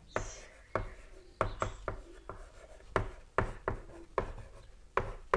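Chalk writing on a blackboard: a run of sharp taps and short scratchy strokes, roughly two a second.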